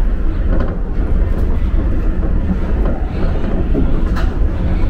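Shonan Monorail suspended rubber-tyred car running along its overhead track beam, heard inside the car as a steady low rumble with a couple of faint clicks.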